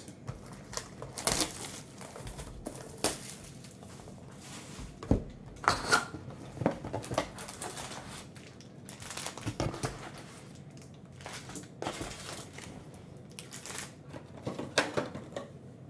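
Plastic shrink-wrap being cut and torn off a trading-card box, then crinkling foil card packs being pulled out of the box and laid down, with scattered rustles and light clicks.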